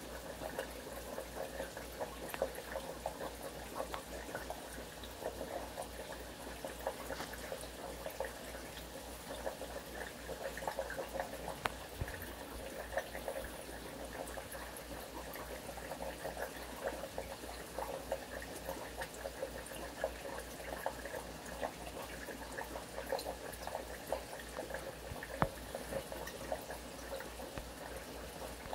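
Aquarium water bubbling and trickling steadily, with many small pops over a low steady hum.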